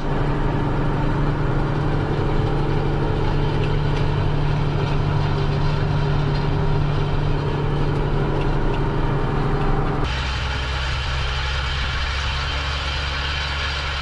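Ford TW-20 tractor's six-cylinder turbo diesel running steadily under load while pulling the rolls, heard inside the cab. About ten seconds in the sound changes abruptly to a deeper engine note.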